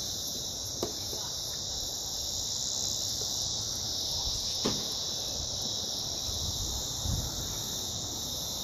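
Chorus of cicadas, a steady high-pitched drone that does not let up, with a couple of faint knocks.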